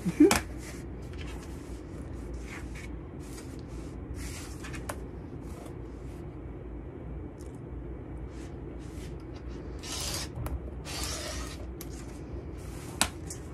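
Rotary cutter rolling along an acrylic ruler and slicing through the edge of a quilted fabric block in several short strokes, each a brief rasp, over a steady low hum. A single sharp click comes near the end.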